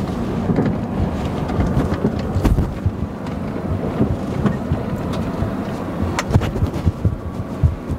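Toyota 4Runner driving slowly over a rough dirt forest track, heard from inside the cabin: a steady low rumble of engine and tyres, with a few sharp knocks from bumps in the track.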